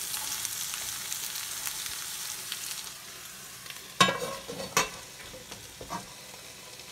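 Stir-fry vegetables sizzling in a pan, the sizzle turning quieter about three seconds in. About a second later a glass pan lid clinks onto the pan twice, with a short ring each time.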